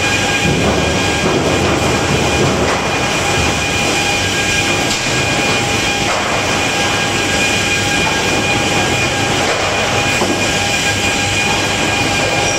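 Timber planing and stacking line running: chain conveyors and machinery make a loud, steady rattling din with a constant high whine over it.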